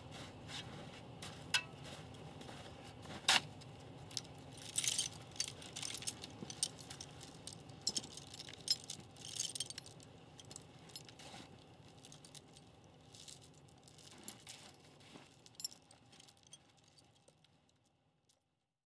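Light metallic clinks and rattles of a steel chain and anchor rigging being handled, with one sharp clink about three seconds in; the sounds thin out and fade away near the end.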